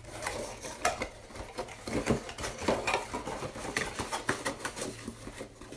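Cardboard Funko Pop boxes with plastic windows being handled: a busy run of small knocks, taps and rustles, with sharper clicks about one, two and three seconds in.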